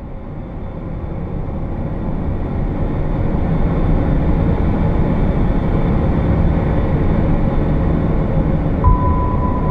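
Low, steady rumble of vehicle traffic, swelling over the first few seconds and then holding. Near the end a thump, then a steady high-pitched tone.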